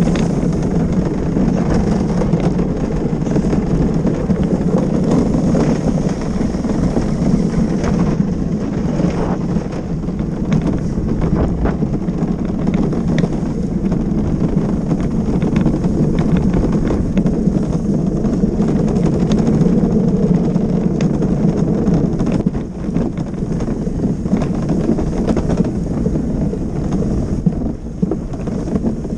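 Gravity luge cart rolling fast down an asphalt track: a steady low rumble of its wheels on the tarmac, mixed with wind buffeting the microphone, and a few sharp knocks along the way.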